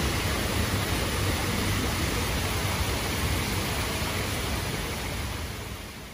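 Steady rush and splash of water from a lit water-wall feature, fading out near the end.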